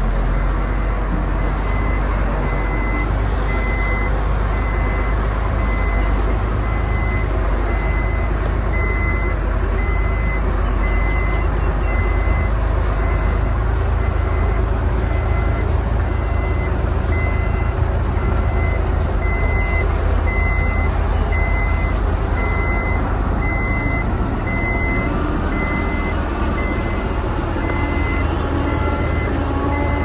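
Heavy diesel earthmoving machine running steadily with a deep engine rumble, its reversing alarm giving a steady series of evenly spaced high beeps.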